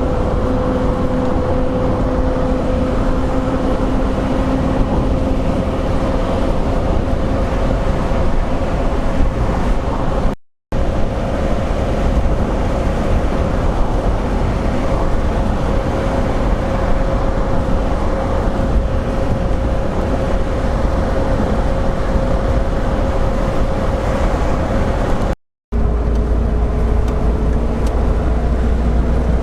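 A car driving: a steady engine hum over road noise. The sound cuts out briefly twice, and after the second break the engine note is a little lower and slowly climbs.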